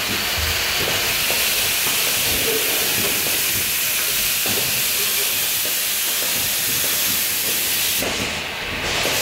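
Steady high hiss of compressed air from a pneumatic pick-and-place unit on an automated production line, easing briefly near the end and then returning.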